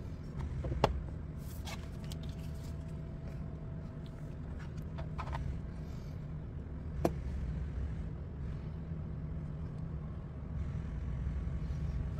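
A few light, sharp clicks and taps from small plastic pieces being handled, the loudest about a second in and about seven seconds in, over a steady low background rumble.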